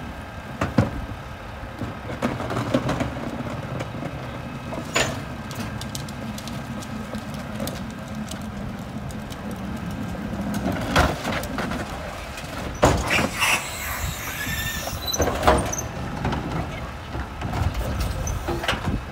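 Rear-loader garbage truck's engine running steadily, with several sharp bangs of plastic wheeled trash carts being handled and tipped into the hopper. A brief high squeal comes about two-thirds of the way in.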